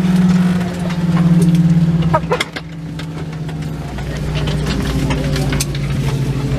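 Airbus A319 engines heard from inside the cabin, a steady low hum that drops in pitch in steps, about two seconds in and again about four seconds in, as they wind down after arrival. Scattered clicks and knocks from the cabin sound over the hum.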